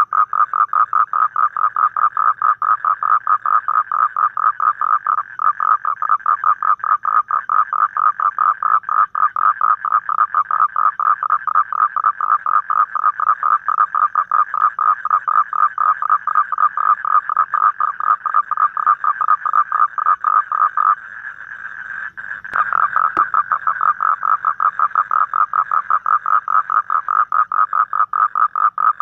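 Toad, the Asian common toad, calling in a long rapid pulsed trill. The trill breaks off for about a second and a half near the end, then starts again after a brief click.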